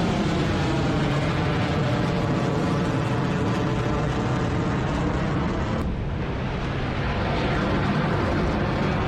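Rocket motor of a sea-launched missile roaring steadily at launch, with slowly sliding tones in the roar and a brief break about six seconds in.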